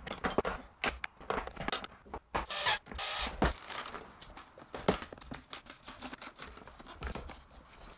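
Irregular plastic clicks and knocks with rustling as hands work a Nerf HyperFire toy blaster: D batteries fitted into its stock, foam darts tipped from a plastic bag onto a wooden table and pushed into the drum magazine.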